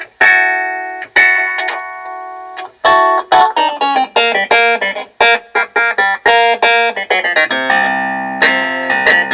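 Vintage Hohner electric keyboard being played, with bright, plucky notes. It opens with a few struck and held chords, then a quick run of notes, and lower notes join near the end.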